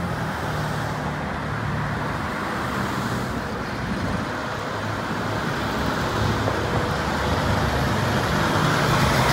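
Road traffic passing: cars and a van go by while a heavy diesel truck's engine grows louder as a Kenworth tractor with a dump trailer approaches toward the end.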